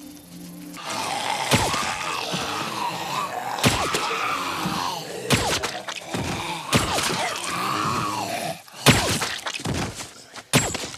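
Zombie growling and snarling, cut through by several sharp hits and kill impacts spread across the clip, with a cluster of them near the end.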